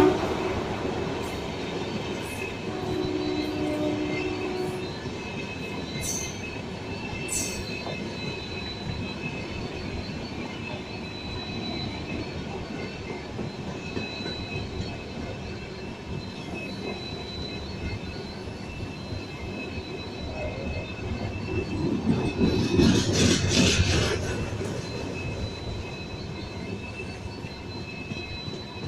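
Passenger coaches rolling past close by: a steady rumble of wheels on rail with a thin, steady wheel squeal over it. The rumble swells louder for a couple of seconds about 22 seconds in.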